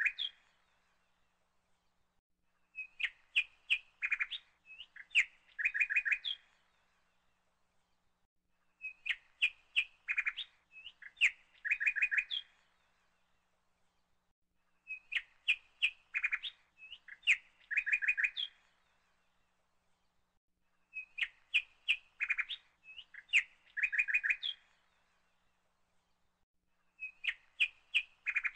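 Birds chirping: the same burst of quick chirps, about three seconds long, comes back every six seconds with silence between, a repeating loop of birdsong rather than a live bird.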